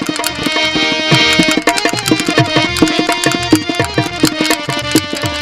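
Rajasthani folk ghazal music: a hand drum plays a quick, dense rhythm, its deep strokes sliding down in pitch, over held melodic instrument tones.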